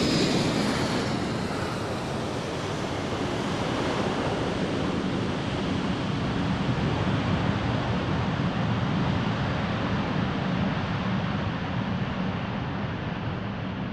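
Sound-effects library sample of a reverse thruster: a steady, rushing rumble with a low hum underneath, its hiss slowly dulling over the length of the sample.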